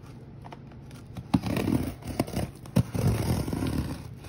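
Scissors blade drawn along packing tape to slit open a cardboard box: scraping and tearing with a few sharp clicks, starting about a second and a half in.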